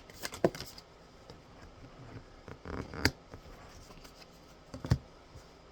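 Tarot cards being handled and drawn from the deck: a few short sharp clicks of card on card, the clearest about three seconds in and another near five seconds.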